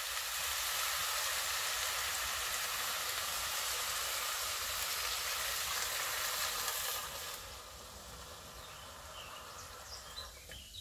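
Pork roast, onions and vegetables in hot oil in a Dutch oven sizzling as beer is poured in to deglaze. The steady hiss drops off sharply about seven seconds in and carries on more quietly.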